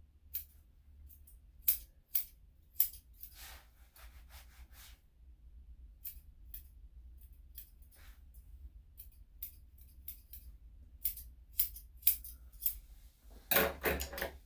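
Grooming scissors snipping a dog's long fur around its leg and paw: two dozen or so quick single snips at an uneven pace. A denser rustle of handling comes near the end.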